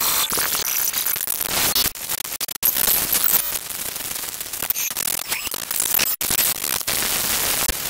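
Glitchy digital noise made of aliasing artifacts: a long collage of assorted recorded samples, rendered and pitched up by an extreme amount, so it folds into harsh noise with thin high tones. The texture changes abruptly, with sudden cuts about two seconds in, again shortly after, and once more about six seconds in.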